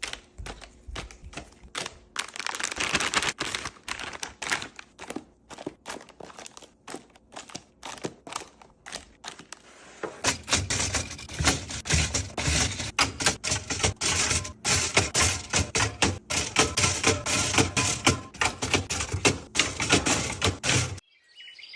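Rapid clicking and tapping of packaged items and containers being handled and set in place, with rustling between. It grows busier and fuller from about halfway, with more dull thuds, and stops suddenly near the end.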